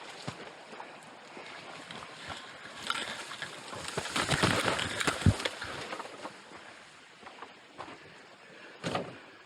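Water sloshing and splashing as someone wades, with scattered knocks and scuffs; loudest about four to five seconds in, then quieter.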